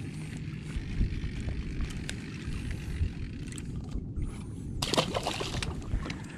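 Steady low rumble of wind on the microphone aboard a boat on the open sea, with a few light handling ticks and one short, sharp burst of noise about five seconds in.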